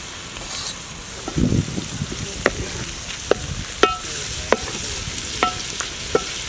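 Shredded cabbage sizzling as it fries in hot oil in an aluminium pan while a wooden spoon stirs it. A dull thump about a second and a half in, then about seven sharp knocks of the spoon against the pan, several with a brief metallic ring.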